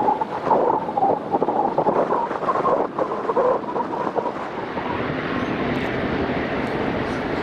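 Airliner engine noise, rough and crackling for the first four seconds or so, then smoothing into a steady rushing noise.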